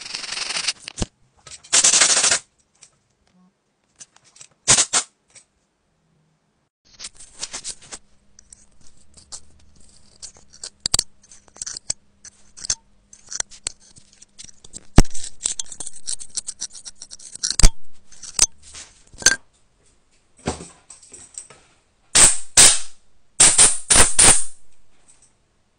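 Close-miked scraping and scratching as an iPhone's Lightning charging port is cleaned: a stiff brush scrubs across the port opening, then a metal pick scrapes packed lint out of the port. Irregular scratchy bursts broken by sharp clicks.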